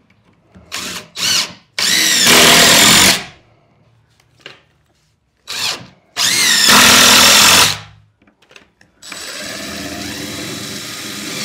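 Cordless drill driving screws into the plywood outhouse framing: two short trigger blips, then two long loud runs and a steadier, quieter run near the end, the motor pitch rising as each run starts.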